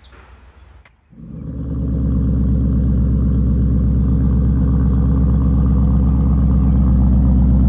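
2016 Ford Mustang GT's 5.0-litre Coyote V8 with a custom Borla exhaust starting up about a second in, then settling into a steady idle.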